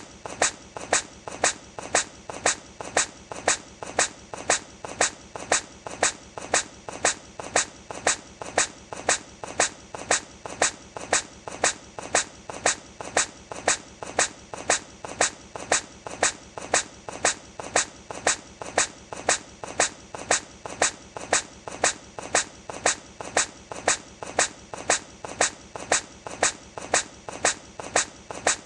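A hedgehog's short sneeze, repeated over and over at an even rhythm of a little under two a second, as in a loop.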